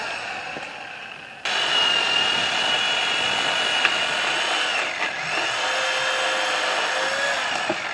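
Gas chainsaw running hard at high revs, cutting wood. The sound is quieter at first, jumps up abruptly about a second and a half in, and its pitch dips briefly near the five-second mark.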